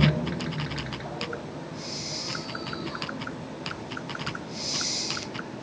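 Light, irregular clicking taps on a smartphone, as a finger works the touchscreen and its keyboard, with two short breathy hisses about two seconds and five seconds in.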